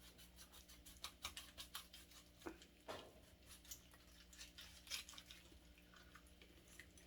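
Faint, irregular small clicks and crunches of a knife working through a fish head to split it in two.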